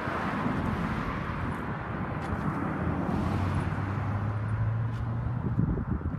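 Traffic noise: a steady road hiss, with a car's engine hum from about three seconds in that stops shortly before the end.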